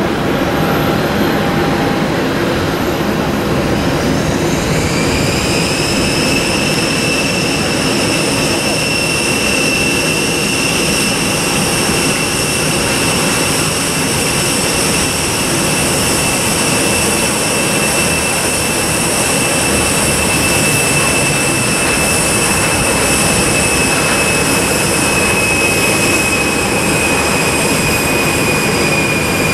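Airbus A320-214's CFM56 jet engines during the landing rollout, a steady jet rumble throughout. About four seconds in, a high whine rises as the engines spool up, then holds steady and eases slightly lower near the end.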